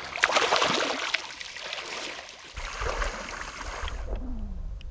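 Shallow river water splashing and sloshing as a surubí catfish held by its tail is let go into the current, loudest in the first second and a half. Later the sound turns low and muffled, heard from just under the water's surface.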